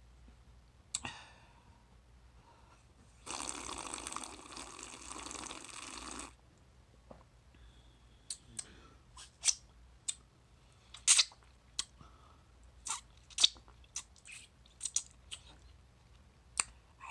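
Mango drink being sucked up through a plastic drinking straw: a wet slurp lasting about three seconds. Later comes a string of sharp, irregular mouth clicks and wet lip smacks close to the microphone.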